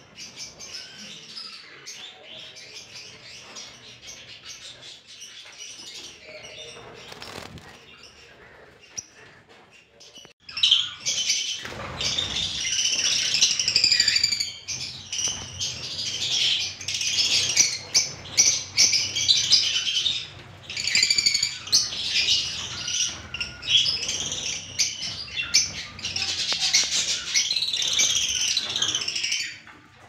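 Many caged lovebirds chirping and chattering. The calls are sparse at first, then about ten seconds in a loud, dense, high-pitched chatter of many overlapping birds sets in and keeps going.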